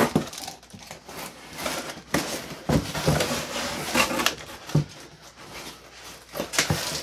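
Cardboard boxes rustling, scraping and knocking as a smaller box is lifted out of a large shipping carton, with scattered thumps.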